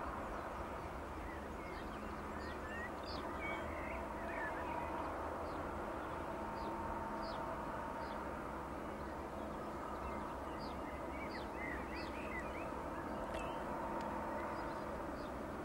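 Small birds chirping and singing, many short high calls scattered throughout, over a steady low background hum. One sharp click near the end.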